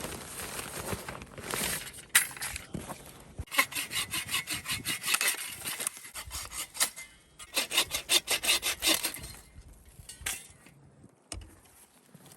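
Hand saw cutting wood in fast, even back-and-forth strokes, in two runs in the middle, with rougher scraping before them and quieter near the end.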